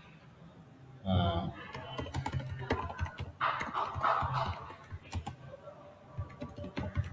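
Typing on a computer keyboard: a steady run of quick key clicks, with a short murmur of voice about a second in.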